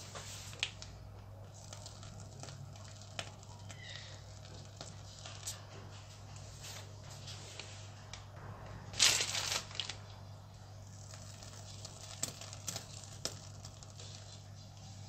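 Plastic piping bags crinkling and rustling as whipped cream is squeezed out around the base of a cake, with scattered light clicks and one louder rustle about nine seconds in, over a low steady hum.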